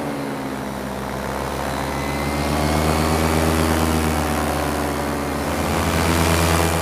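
Paramotor's engine and propeller running in flight: a steady drone that dips slightly in pitch about a second in, with the hiss of rushing air.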